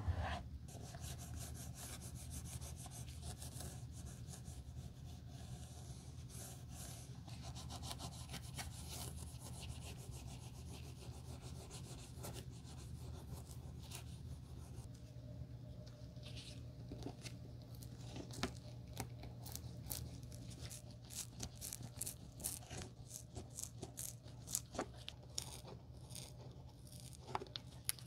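A felt pad rubbed steadily over the leather of a slipper's upper and sole edge, a soft continuous rubbing. About halfway through it gives way to sharper scattered clicks and scrapes, and near the end a small blade is prying under the insole.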